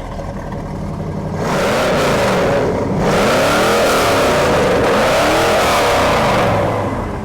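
1969 Shelby GT500's 428 Cobra Jet V8 idling, then revved repeatedly from about a second and a half in, its pitch rising and falling with each blip, before settling back to idle near the end.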